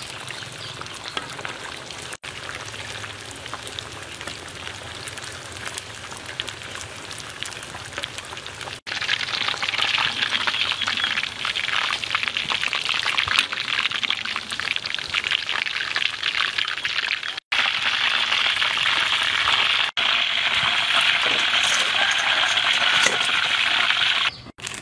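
Hot oil bubbling and crackling as a large coated chicken deep-fries in a wok: a dense, steady sizzle of many small pops, louder from about a third of the way through.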